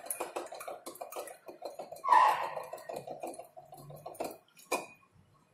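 Glass jar of 2,4-D solution being swirled on the countertop to dissolve the last of the powder: liquid sloshing with glass clicking and scraping, one louder clink about two seconds in, stopping shortly before the end.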